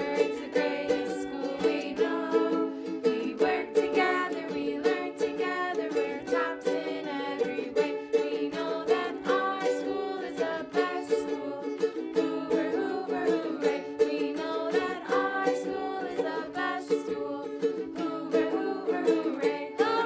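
Ukulele strummed steadily, accompanying a small group of children and adults singing the school song together.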